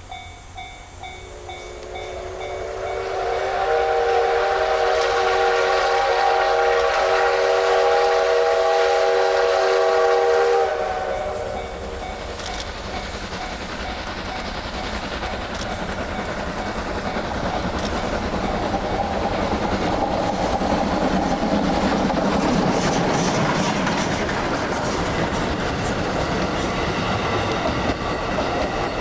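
Steam locomotive's whistle sounding one long, steady chord of several pitches for about ten seconds. After it stops, the running noise of the locomotive and its train grows louder as it comes past.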